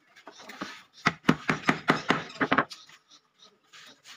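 Hammer blows on wooden planks, a quick run of about eight strikes starting about a second in, with a few fainter knocks before it: planks being nailed down.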